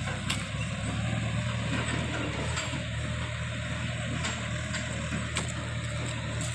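A vehicle engine running steadily at a low, even pitch on a rough dirt track, with a few sharp clicks or knocks about midway and later.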